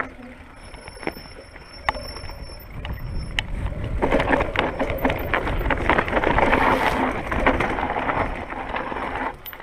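Mountain bike tyres rolling and sliding over loose stones on a steep trail descent, with rattling clicks of stones and bike. It grows much louder about four seconds in and drops off near the end.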